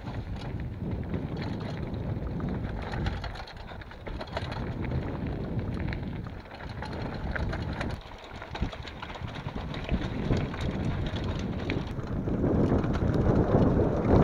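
Mountain bike riding fast down a dirt singletrack, heard from an action camera on the bike: wind rushing over the microphone, tyres on dirt, and many small rattles and clicks from the bike. The rush swells and grows louder over the last two seconds.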